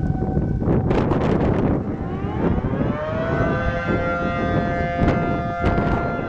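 Model 7 outdoor tornado warning siren sounding its rise-and-fall attack signal: a steady tone drops away early on, then about two seconds in the siren winds up in pitch and holds high, a second, lower siren tone joining about a second later. A loud rumbling noise runs underneath, with a few short knocks.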